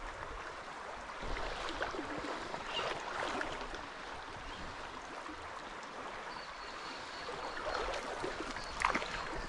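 Shallow river water flowing and rippling past the bank, a steady even wash of water sound.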